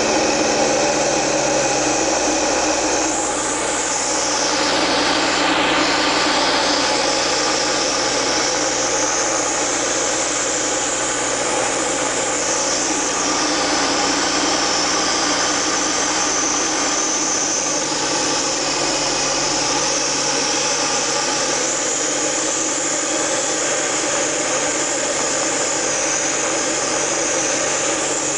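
Cabin noise of a Diamond DA20 Eclipse in flight: its four-cylinder piston engine and propeller running steadily, with airflow hiss over it. The low engine tone shifts slightly about two-thirds of the way through.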